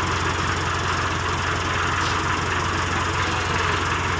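Diesel engine of heavy hydraulic equipment running steadily with a constant low hum while a suspended man-cage is hoisted.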